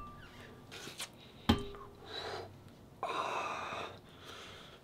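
A homemade dumbbell of two steel brake rotors on a steel pipe clanks once against the workbench with a short metallic ring, about a second and a half in. Near the end comes a single hard exhale of breath, lasting about a second.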